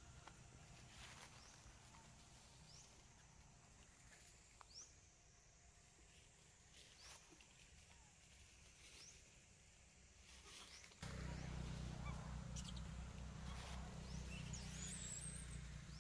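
Near silence: faint outdoor ambience with soft, short rising chirps every second or two. About eleven seconds in, a low rumble starts suddenly and continues.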